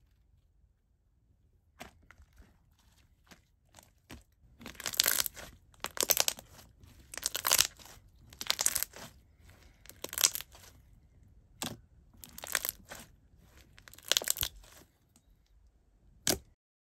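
Hands pressing and squishing a jiggly, watery clear slime on a tabletop, giving wet, crackly popping clicks. After a few faint clicks, the squishes come in repeated bursts about once a second, and there is one sharp pop near the end.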